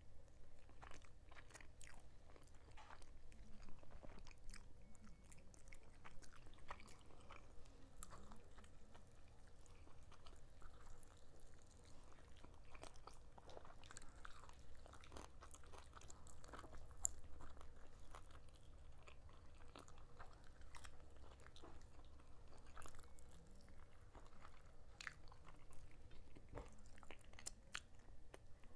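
Faint chewing of a honey-Dijon glazed chicken drumstick, with small irregular clicks and bites scattered throughout.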